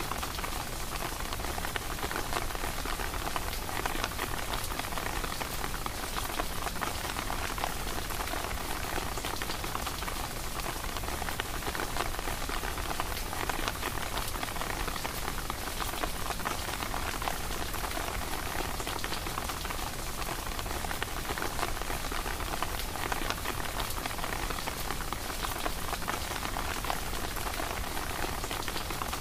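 Steady rain falling: an even hiss scattered with many fine drop ticks.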